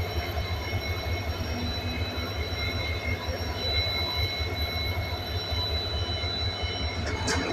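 Heavy diesel machinery running steadily: a low, even rumble with a high steady whine above it.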